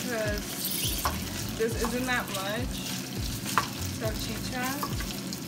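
Diced sausage sizzling in a nonstick frying pan while a wooden spoon stirs and scrapes through it, with a couple of sharp taps of the spoon against the pan.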